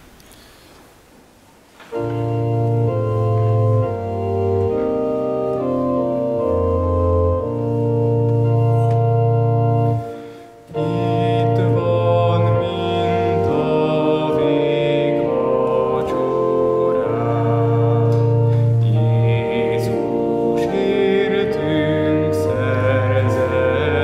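Organ playing slow, sustained chords over held bass notes, starting about two seconds in, with a short break near ten seconds. From about twelve seconds a higher melody with vibrato sounds above the chords.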